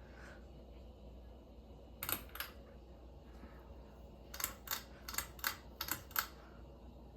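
Sharp clicks over a low steady hum: two close together about two seconds in, then a quick, uneven run of about eight clicks near the end.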